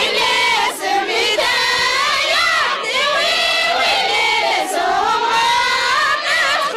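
A group of women singing an Amazigh wedding chant together in high voices, with the noise of a crowd around them.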